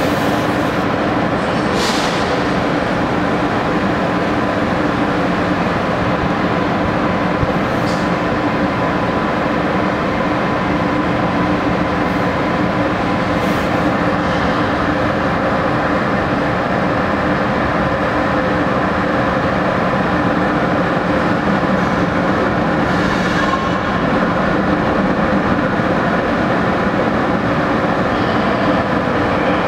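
Steady hum of a Renfe AVE high-speed electric train standing at the platform, its onboard equipment running, with a few brief faint high ticks.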